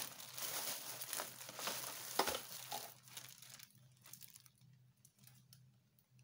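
Cellophane packaging on kitchen utensils crinkling as the wrapped items are handled and laid down, with one light knock a couple of seconds in. The crinkling thins out to faint scattered crackles after about four seconds.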